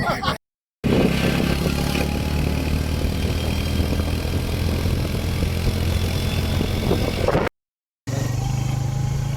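Motor vehicle engine running steadily while driving, with road noise. The sound cuts out completely twice, briefly: about half a second in and again near the end.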